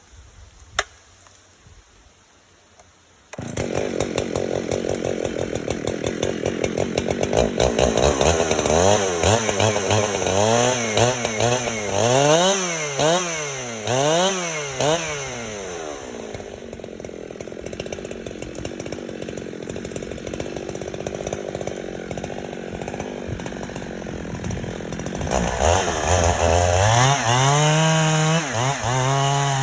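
Two-stroke chainsaw felling a Scotch pine. It comes in loud suddenly about three seconds in, then runs with its engine pitch rising and falling over and over as it cuts. It goes steadier for several seconds, then rises and falls again near the end.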